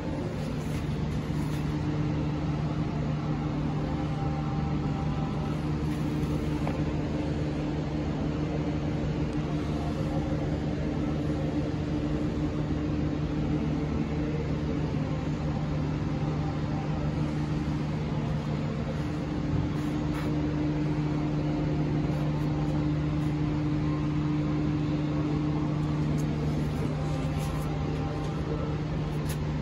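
A steady low mechanical hum with a constant pitch.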